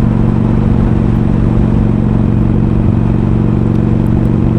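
Harley-Davidson Iron's V-twin, fitted with a 1200 kit and Screamin' Eagle slip-on exhausts, running steadily at an even engine speed.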